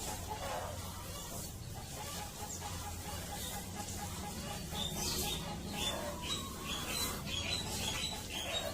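Chickens calling: a fast low trill in the first few seconds, then a run of short high chirps, about three a second, through the second half, over a steady low hum.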